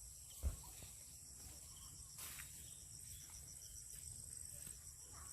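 Insects chirring steadily in a high pitch, one of them in a rapid pulsing chirp, over a low rumble of wind or handling noise; a single dull thump about half a second in.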